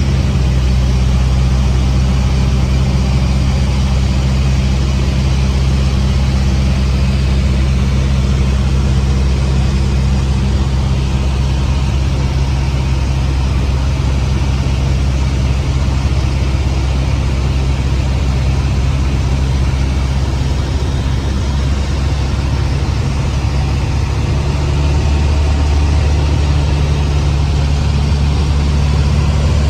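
Cessna 150's four-cylinder Continental O-200 engine and propeller running steadily in flight, a constant low drone, with a small shift in its tone about 25 seconds in.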